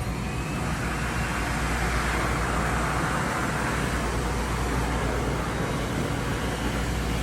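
T290 walk-behind floor scrubber running: a steady motor whir over a low hum, swelling slightly about half a second in.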